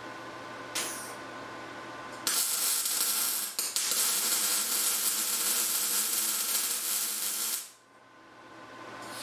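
A steady low hum, then a loud, even hiss of about five seconds that starts abruptly a little over two seconds in, breaks off briefly once, and cuts off near the end.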